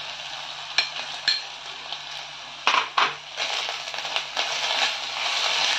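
Chopped tomato frying in oil in a stainless steel kadai, sizzling, while a steel spatula knocks and scrapes against the pan as it is stirred. Two short ringing clinks come about a second in, louder knocks near three seconds, then steady scraping.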